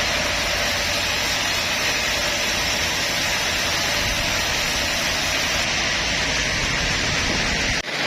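Sawmill bandsaw running with a steady, even noise, which drops out for a split second near the end.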